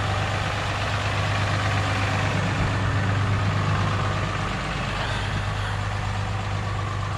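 Truck engine running with a steady low hum and no change in speed.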